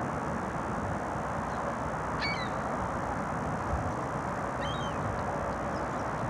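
Steady distant traffic rumble, with short high bird chirps about two seconds in and again near five seconds.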